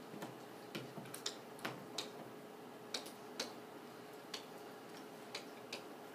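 Irregular, sharp clicks of a stylus tapping on an iPad's glass screen as letters are handwritten, over a faint steady hum.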